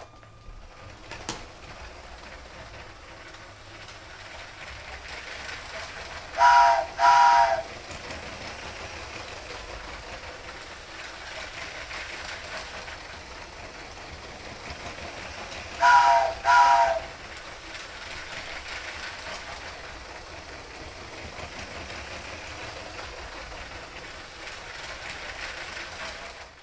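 Battery-powered Lego City passenger train running on plastic track, a steady whirring rumble of motor and wheels. A train horn gives two short blasts about six seconds in and again about sixteen seconds in.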